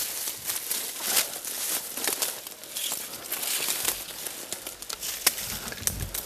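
Dry fallen leaves crunching and rustling under footsteps and a kneeling body: a quick, irregular run of crackles.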